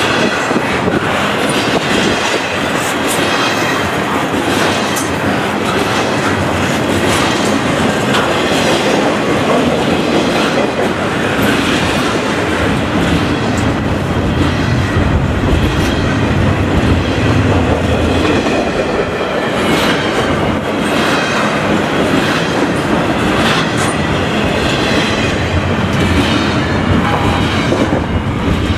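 Double-stack intermodal container train's well cars rolling past close by: a steady, loud rumble of steel wheels on rail with clickety-clack clicks as the wheels cross rail joints.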